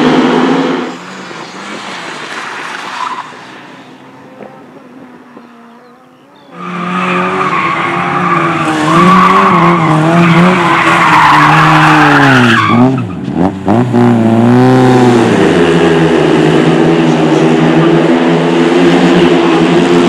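Racing engines in several cuts. First, speedway motorcycles' engines are heard racing, fading after about a second. From about six seconds in, a Lada 2107 saloon drifts: its engine revs up and down with tyres squealing, with sharp drops in revs a few times. A steadier engine note runs through the last few seconds.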